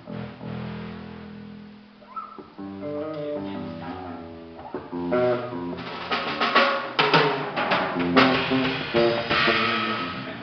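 A band playing guitar over a drum kit during a sound check. A held chord opens, then a run of notes follows, growing louder as cymbals come in about halfway through.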